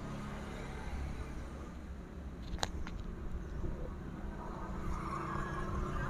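Steady low background hum with a single sharp click about two and a half seconds in, as chainsaw parts are fitted together by hand.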